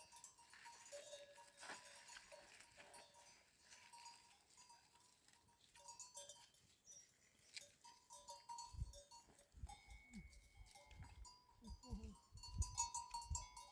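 Faint livestock bells on sheep and goats, ringing now and then in soft clinks. Low dull thuds come in over the second half.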